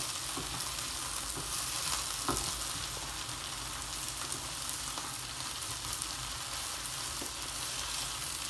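Mixed vegetables sizzling in oil in a nonstick frying pan as they are stirred and tossed with a silicone spatula, a steady hiss with scattered light scrapes and clicks of the spatula against the pan.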